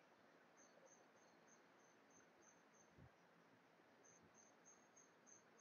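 Near silence with faint, high-pitched chirping in the background: short evenly spaced chirps, about four or five a second, in two runs with a gap of about a second between them.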